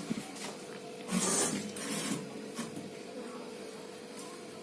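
Handling noise: a couple of brief rustles or scrapes and a few light clicks, over a steady faint hum.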